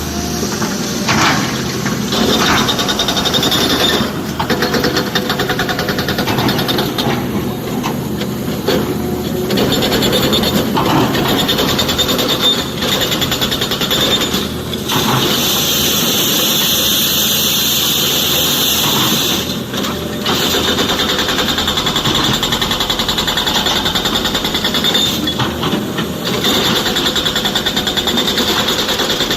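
SANY excavator's diesel engine running hard while working, a steady machine racket that dips briefly every five seconds or so.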